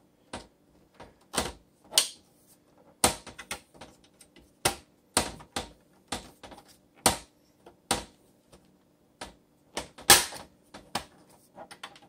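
Plastic front bezel of an HP Slimline 290 desktop being pried off the metal case: a string of irregular sharp clicks and knocks as the clips are worked, the loudest about ten seconds in.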